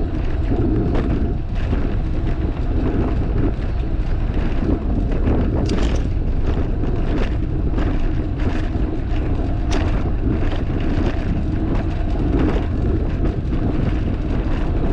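Wind rushing over a bike-mounted action camera's microphone while riding a fixed-gear bicycle, with tyres rolling on concrete paving and scattered sharp clicks, the strongest about six and ten seconds in.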